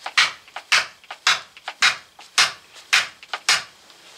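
Axe head being driven down onto a wooden handle with a steady run of knocks, about two a second, with lighter knocks between. The head is not yet seated.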